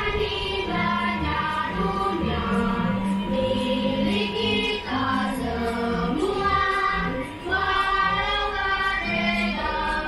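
Recorded choir music played over the ride's sound system: many voices singing a bright, flowing melody.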